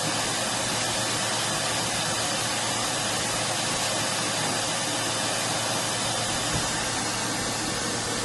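Steady, even hiss of rushing air that holds at one level throughout, with no distinct events.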